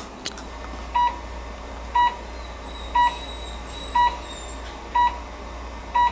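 Aspen Class IV therapy laser sounding its emission beep while the probe is firing: six short, identical mid-pitched beeps, evenly spaced once a second.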